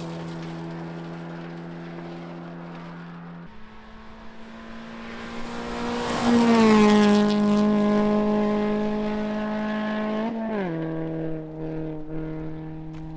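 Rally car engine held at steady revs as the car approaches and goes by. Its note drops in pitch about ten and a half seconds in as it passes.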